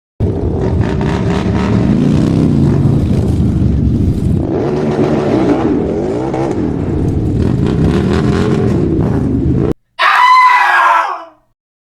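A car engine revving up and down for about ten seconds, cutting off abruptly. It is followed by a short, louder screech that falls away within about a second and a half.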